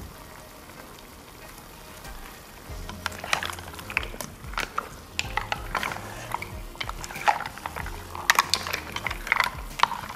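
Mussel shells clacking against each other and the pot in quick, irregular clicks as they are stirred with a spatula, starting about three seconds in.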